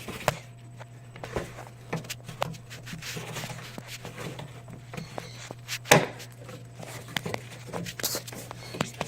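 Hands working the plastic bulb cover on the back of a BMW Z4 headlight and its wire retaining clip: scattered clicks, scrapes and rustling, with a sharper knock about six seconds in, over a steady low hum.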